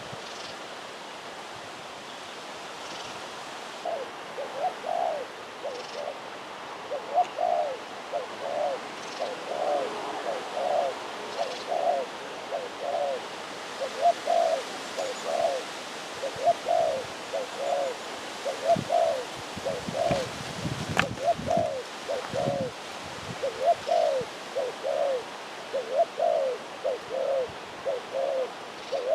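A dove cooing over and over: short, low, curved coo notes in quick groups, repeating steadily. A single sharp click sounds about two-thirds of the way through.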